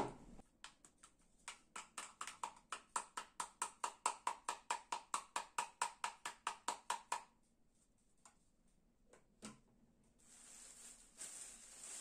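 A quick, even run of plastic knocks, about five a second for several seconds, as the dust is tapped out of the plastic cyclone filter of a Xiaomi G10 stick vacuum. Near the end comes a soft plastic-bag rustle.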